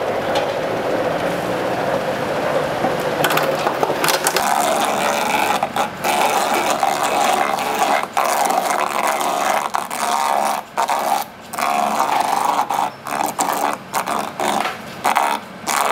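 Motorised coconut-processing machine running, scraping and grinding at a coconut with a steady grating sound. From about four seconds in the scrape gets harsher and cuts out briefly several times.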